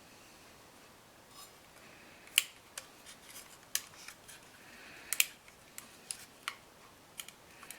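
Small model-kit parts being handled and fitted: about a dozen sharp, irregular clicks and taps, starting about two seconds in.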